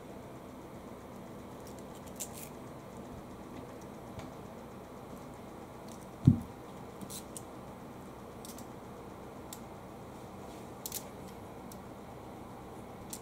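A cat rolling and playing with a string toy on a wooden floor: a few faint scattered clicks and ticks over a steady low room hum, and one short, loud low thump about six seconds in.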